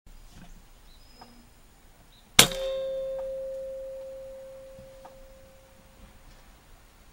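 A single shot from a .22 PCP air rifle: one sharp crack about two and a half seconds in, followed at once by a clear metallic ring that fades away over three to four seconds.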